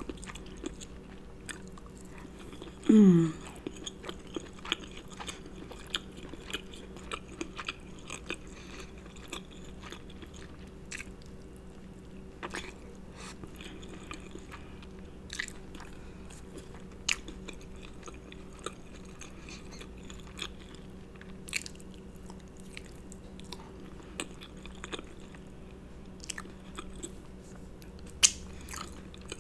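Close-miked wet chewing and lip smacking as soft king crab meat dipped in Alfredo sauce is eaten, with many small mouth clicks. A steady low refrigerator hum runs underneath. A short falling vocal sound comes about three seconds in.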